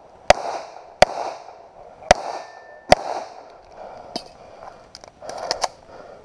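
Semi-automatic pistol fired on a shooting range: four loud shots roughly a second apart in the first three seconds, each trailing off in a short echo. Then come quieter knocks while the shooter moves to the next position, and a quick cluster of sharper cracks about five and a half seconds in.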